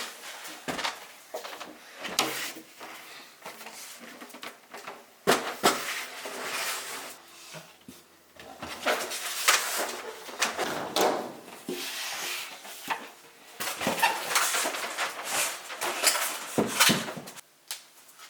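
Irregular knocks, clicks and scraping of objects being handled.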